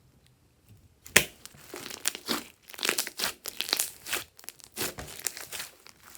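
Glossy slime being squished and worked by hand, giving irregular sticky crackling squishes that start about a second in after a near-quiet moment.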